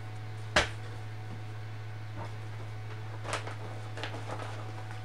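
Hands handling cross-stitch chart packets on a desk: a sharp tap about half a second in, then a few soft rustles and clicks, over a steady low hum.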